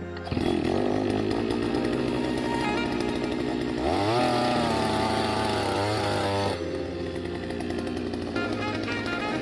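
A 68 cc two-stroke petrol earth auger running while it bores a planting hole in soil. Its engine climbs in pitch about four seconds in as it works into the ground, then drops back to a lower speed a couple of seconds later.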